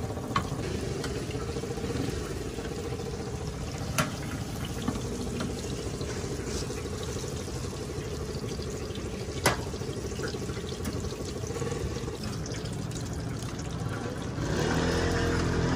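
Battered oyster balls deep-frying in hot oil: a steady sizzle and bubbling. A few sharp metal clicks come from the spatula striking the steel fryer. Near the end the frying gets louder, with heavier bubbling.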